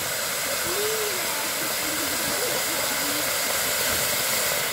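Two ground fountain fireworks hissing steadily as they spray sparks.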